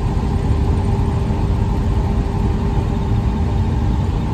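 Steady road and engine noise heard inside a moving van's cabin: a constant low rumble with a thin steady hum running through it.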